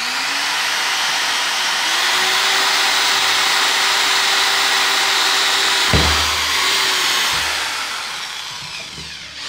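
Bosch GSR 7-14 E corded 400 W drill/driver boring a high-speed steel bit through pine, a loud, steady drilling noise. There is one sharp knock about six seconds in, and the sound eases off near the end.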